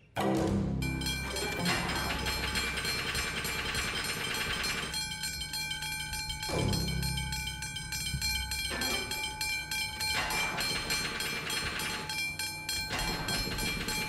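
Train horn sounding over the clatter of a train's wheels on the rails, with a low rumble; it cuts in suddenly and loud.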